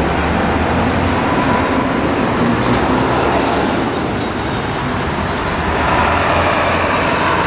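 Road traffic and vehicle engine noise: a steady low rumble under a spread of road noise, with a faint high whine that rises and then falls away around the middle.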